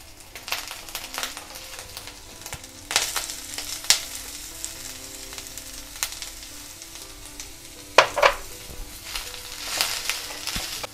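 Ginger and green chillies sizzling in hot oil in a stainless steel kadhai. About three seconds in the sizzle grows louder as sliced onions are tipped in, then a silicone spatula stirs them, with a few sharp knocks against the pan, the loudest about eight seconds in.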